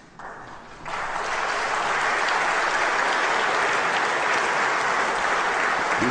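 Audience applauding: a few scattered claps at first, swelling to full, steady applause about a second in.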